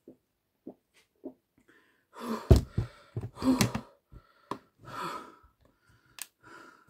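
A person drinking from a flip-spout water bottle: a few faint swallows, then heavy gasping breaths out after the long drink, with a few sharp clicks among them.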